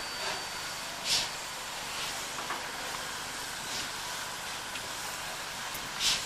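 Standing steam locomotives, a class 44 and a class 95, hissing steam steadily, with short louder puffs of steam about every two and a half seconds.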